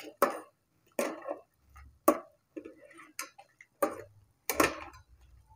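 Metal ladle stirring soup in a rice cooker's metal inner pot, clinking against the pot's sides about once a second.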